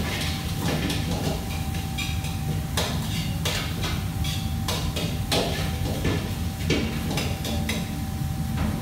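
Kitchen clatter: irregular clinks and knocks of metal utensils and dishes being handled at a work counter, over a steady low hum of kitchen equipment with a thin steady tone.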